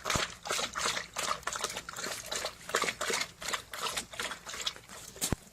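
Quick, irregular wet clicks and splashes of liquid, several a second.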